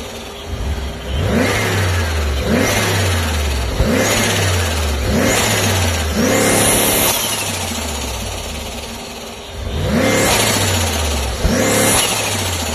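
Turbocharged car engine revved in short, repeated throttle blips, about seven in all, with a longer rev in the middle. As the throttle snaps shut after each blip, the turbo flutters (the 'stututu' of compressor surge) and its whistle falls away in pitch.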